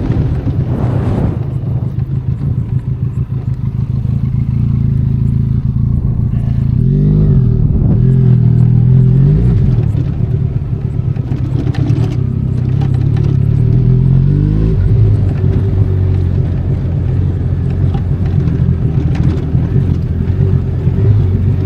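Benelli Leoncino 500 Trail's parallel-twin engine running at low revs, its pitch rising and falling twice as the throttle is opened and closed. A few short knocks and clatter sound over it.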